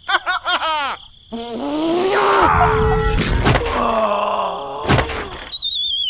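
Cartoon-style sound effects: a quick run of bouncing pitched blips, then wavering groan-like tones with two sharp knocks, and near the end a warbling whistle sliding down in pitch.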